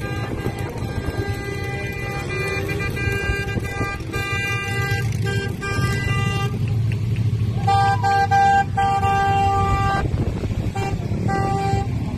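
Vehicle horns honking in several blasts, the longest and loudest from about eight to ten seconds in. Underneath is the steady low running of truck engines.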